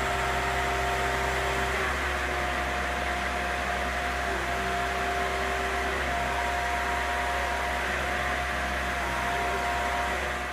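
Boat travel lift running steadily: a low engine hum with a whining tone over it that shifts slightly in pitch now and then.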